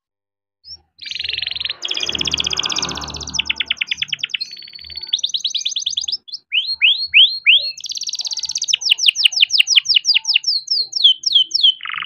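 Young yellow domestic canary singing a long rolling song, starting about a second in: rapid trills one after another, a few downward-sweeping whistled notes midway, then more fast trills and falling notes near the end.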